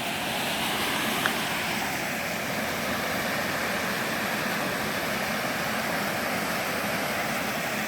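Steady rush of a river swollen with floodwater, an even roar of water with no change.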